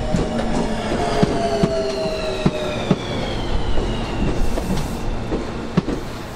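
Tobu 30000 series electric train slowing down, its traction motor drive whining in several tones that fall steadily in pitch, with its wheels clicking over rail joints.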